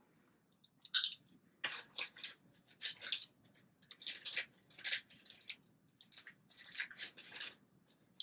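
Faint, short scrapes and rustles of eyeglass frames being handled, about a dozen small sounds in a row, sharp and thin with no low thud.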